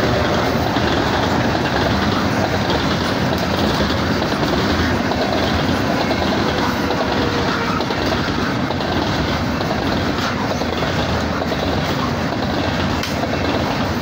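BNSF coal train's hopper cars rolling steadily past, a loud continuous rumble of steel wheels on rail.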